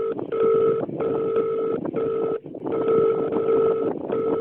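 Telephone-style electronic tones beeping in uneven bursts of about half a second to a second, a low pair of tones with a higher one above, over a grainy noise bed.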